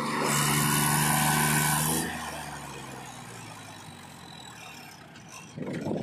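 Mahindra tractor's diesel engine running under load, pulling a trailer loaded with mud through soft ground. It is loud for about the first two seconds, then drops quieter, and a burst of rough noise comes in near the end.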